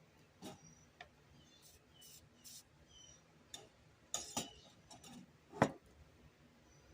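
Scattered faint clicks and light taps from items being handled on a workbench, the sharpest knock about five and a half seconds in, with a few brief high chirps in the first three seconds.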